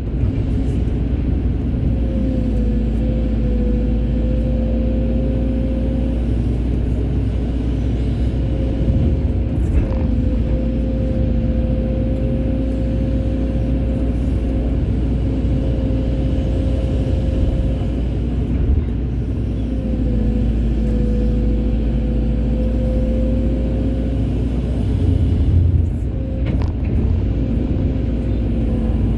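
Hydraulic excavator's diesel engine running steadily with a deep rumble and a constant whine from the hydraulics. The whine sags briefly in pitch a few times as the machine takes load.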